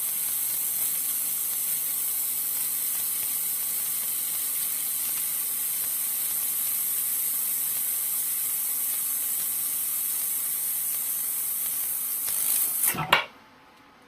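Handheld laser welder at full power welding 10 mm mild steel: a steady high hiss with a faint low hum under it. It cuts off suddenly with a sharp click about 13 seconds in.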